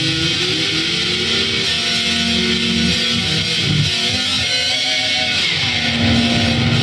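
Electric guitar playing loud sustained chords, with a sliding note near the start and a falling slide about five seconds in.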